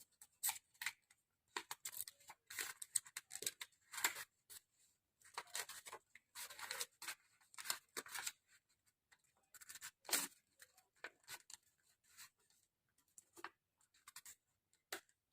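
A4 paper being folded and creased by hand: short, irregular rustles and crinkles of the sheet, with sharper swipes as folds are pressed flat.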